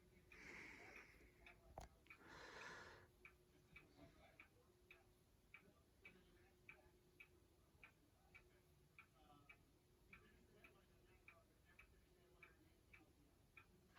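Near silence: a ceiling fan running at its slowest speed on a variable speed control, giving a faint steady motor hum, with light regular ticking about twice a second.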